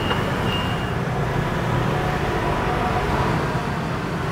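Steady low rumble of road-vehicle or traffic noise, with a high, repeating electronic beep that stops about a second in.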